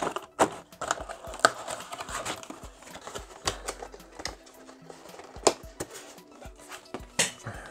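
Cardboard shipping box and its plastic packaging insert being handled and folded shut: rustling and crinkling with several sharp taps and knocks.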